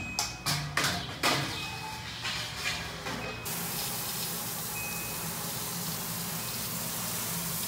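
Crushed malt pouring into the mash basket of a stainless steel electric brewing kettle, a steady rushing hiss that starts about three seconds in: the grain being doughed into the hot mash water. Before it, a few sharp metal knocks and clanks as the basket is set in place.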